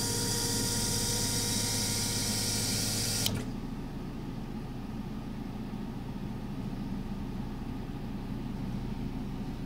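Set of Bosch 0280158116 fuel injectors firing on a flow-test bench, spraying fuel into graduated measuring cylinders with a steady hiss and buzz, which cuts off suddenly about three seconds in as the flow-test run ends. A quieter steady hum from the bench carries on afterwards.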